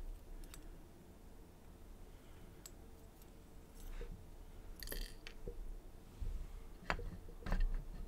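Small scattered clicks and taps of steel tweezers against a brass lock plug and its pins, with one brighter metallic clink about five seconds in and a few sharper clicks near the end, over a faint steady hum.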